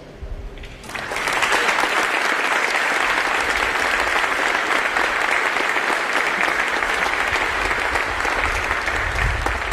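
Audience applauding: dense clapping that starts about a second in and holds steady.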